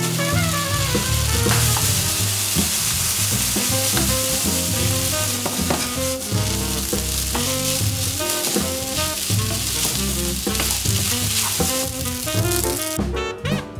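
Rice and ketchup-coated chicken sizzling as they are stir-fried in a frying pan, with a wooden spatula scraping and tapping the pan. The sizzling stops near the end.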